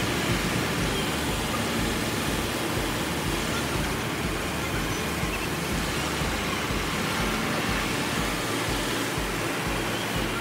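A farm tractor's diesel engine running steadily while driving along, heard from on board the tractor.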